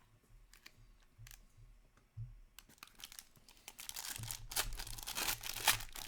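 Plastic wrapping on Upper Deck Stature hockey card packaging being torn open and crinkled: a few light clicks and handling noises, then from about two and a half seconds in a dense crackle of tearing wrapper that grows loudest near the end.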